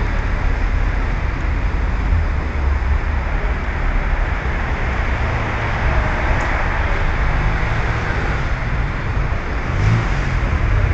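Steady city street traffic noise, a continuous rumble of vehicles.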